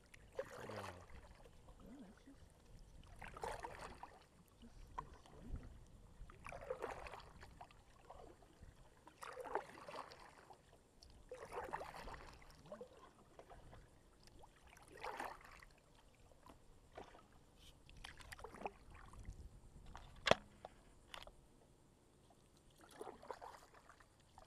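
Kayak paddle strokes swishing and splashing in calm creek water, one about every three seconds. A single sharp knock about two-thirds of the way through is the loudest sound.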